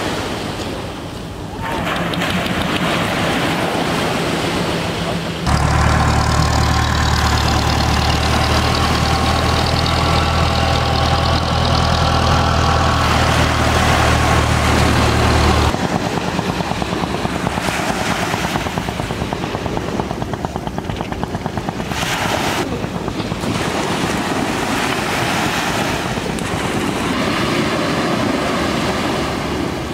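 Small boat engine running steadily over waves washing onto the beach. The engine is loudest and deepest from about five seconds in and drops away sharply about fifteen seconds in. After that a fast, even pulsing carries on under the surf.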